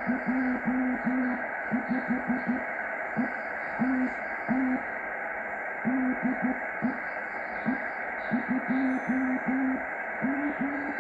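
Morse code (CW) from a Kenwood TM-255 2-metre transceiver's speaker: a low-pitched beep keyed in dots and dashes, in groups with short pauses, over steady receiver hiss.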